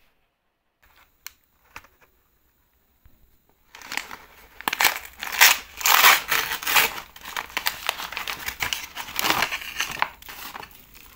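Packaging crinkling and crackling as it is handled and unwrapped, after a few seconds of near silence with a couple of faint clicks. The crinkling starts about four seconds in and dies away near the end.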